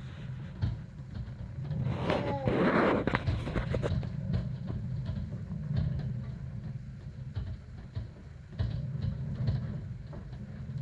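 Hurricane-force wind buffeting the house, a steady low rumble, with a louder gust about two seconds in and scattered knocks and bangs from the building.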